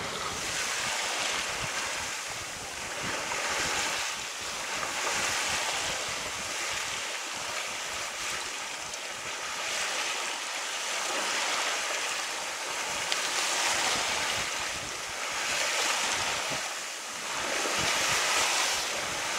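Water rushing and splashing along a sailboat's hull as it sails at about 4 knots, a steady hiss that swells and eases unevenly, with wind on the microphone.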